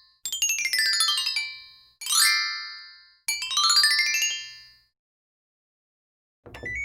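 Three sparkle or twinkle sound effects in a row, each a quick cascade of bright bell-like chimes sweeping across pitch and ringing off over about a second. After a short pause, a rising whistle-like glide starts near the end.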